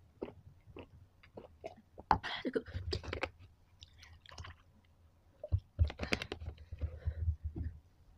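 A person gulping and swallowing milk from a plastic cup close to the microphone. About midway, milk is poured from a carton into the cup, and a louder run of gulps follows near the end.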